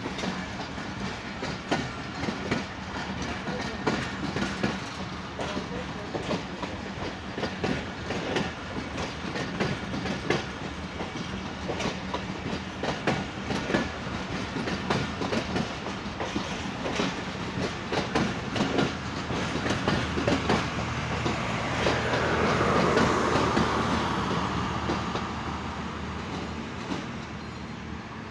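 Pakistan Express passenger coaches rolling out of the station at low speed, their steel wheels clicking over rail joints over a steady rumble. The sound swells about three-quarters of the way through, then fades as the train pulls away.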